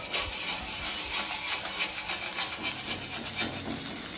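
Metal spatula scraping in short strokes across a hot flat-top griddle, working under a thin smashed beef patty to lift and flip it, over the sizzle of the patties frying.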